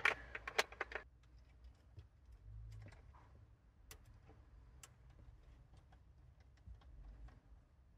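Small hard parts clicking and tapping as a paddle-shifter unit is slid into place on a steering wheel: a quick run of sharp clicks in the first second, then a few faint scattered ticks.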